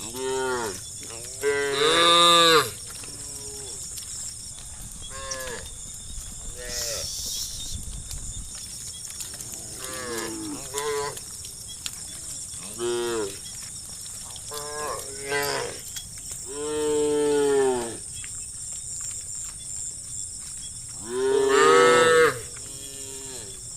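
A herd of cattle mooing, one call after another at different pitches. The calls are loudest at about two seconds in, again at about seventeen seconds, and near the end, over a steady high hiss.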